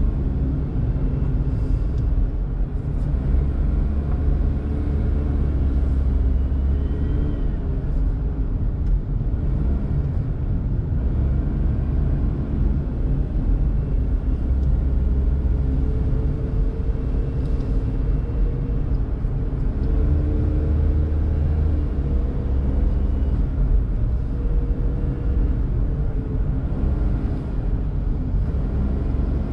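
Daihatsu Mira Tocot kei car on the move, its small three-cylinder engine humming under a steady low rumble of tyre and road noise; the engine note rises gently a little past halfway.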